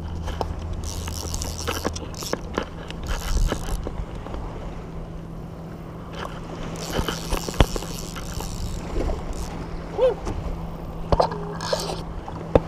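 Rubbing and handling noise of hands and fly line against an action camera while a fish is played on a fly rod, with a few sharp knocks and some brief hissing. A steady low hum runs underneath.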